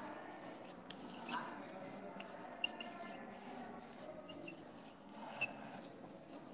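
Chalk scratching and tapping on a blackboard in short, irregular strokes as a column of numbers is written.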